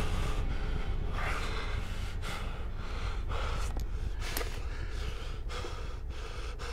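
A man breathing hard in ragged gasps, roughly one breath a second, over a low steady rumble.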